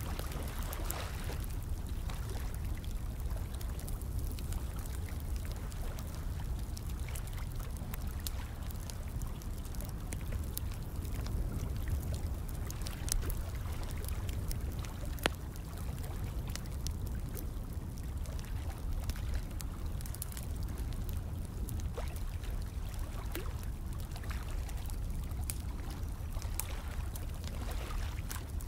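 Fire crackling with scattered sharp pops, one louder pop about fifteen seconds in, over a steady rush of running water.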